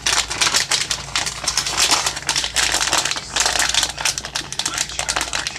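Plastic bag of shredded Parmesan cheese crinkling as it is squeezed and handled, a dense run of crackles.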